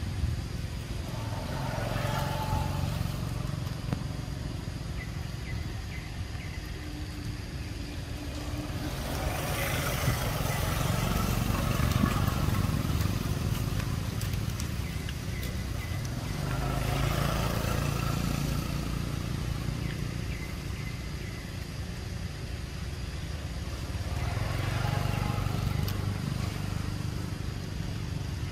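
Motor vehicles passing, four times swelling up and fading away over a steady low rumble.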